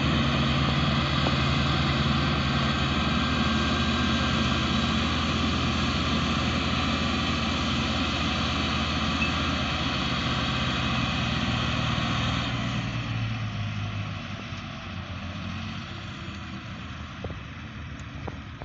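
Diesel tractor engine running steadily under heavy load as it hauls a trolley piled high with sugarcane, a constant low drone that fades away over the last third as the tractor pulls off.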